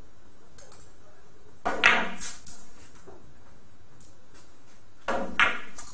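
Billiard balls clacking on a table: two bouts of sharp knocks with a brief ring, about three and a half seconds apart.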